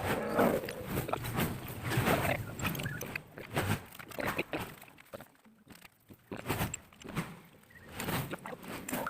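Irregular clinks, knocks and scrapes of metal engine parts and hand tools being handled during assembly of a Honda Tiger motorcycle engine, with a quieter spell about halfway through.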